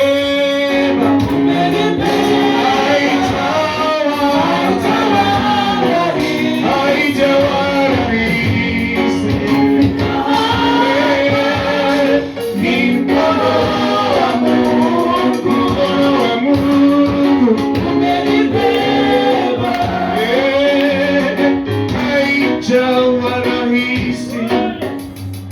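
Swahili gospel worship song, with voices singing a slow melody over a sustained instrumental accompaniment.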